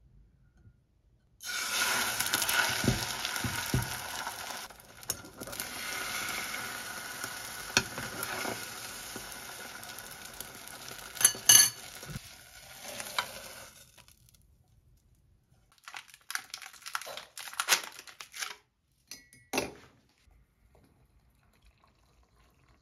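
Beaten egg sizzling in hot oil in a small nonstick saucepan. The sizzle starts suddenly and loud about a second and a half in, then fades over some twelve seconds, with a few sharp taps of chopsticks against the pan. Near the end come several short clinks and scrapes.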